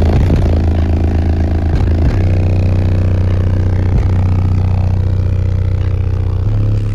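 Eight Sundown X 15-inch subwoofers playing bass-heavy music very loudly inside a semi truck's cab, with deep sustained bass notes that shift every couple of seconds.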